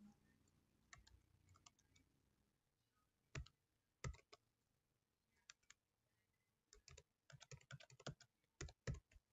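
Faint computer keyboard typing: a few scattered keystrokes, then a quicker run of keys in the last two seconds or so.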